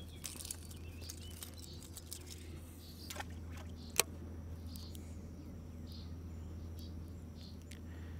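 Quiet outdoor ambience: faint insect and bird chirps over a steady low hum, broken by a few sharp clicks, the loudest about four seconds in.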